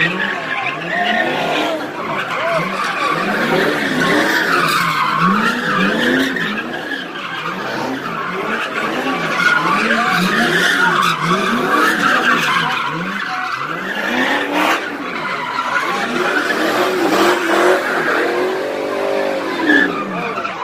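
A car doing donuts: its engine revs rise and fall over and over, about once a second, over continuous tire squeal.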